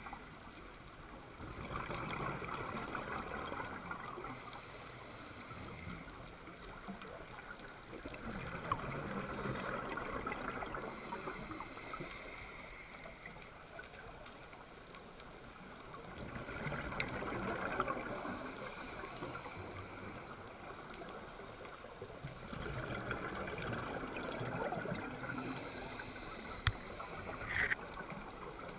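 Scuba diver's exhaled bubbles gurgling out of the regulator, heard through the underwater camera housing. They come in four swells about six to seven seconds apart, with a quieter watery hiss between breaths.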